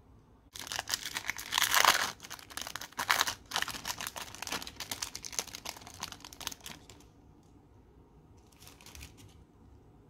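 Plastic film wrapper of a processed cheese slice crinkling as it is peeled off by hand: a dense run of crackles lasting about six seconds, loudest near the start, then a brief softer rustle near the end.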